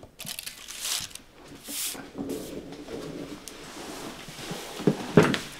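Hands working a split-bamboo uchiwa fan: light rustling and scraping of paper against the fanned-out bamboo ribs, then two sharp clicks close together near the end.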